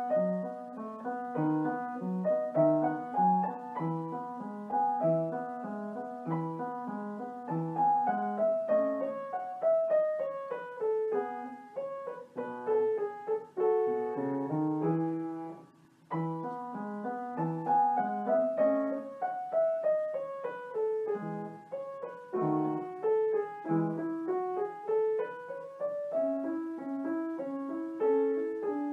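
Solo piano background music, a gentle flowing melody over a repeating bass pattern, with a short pause about halfway through before it starts again.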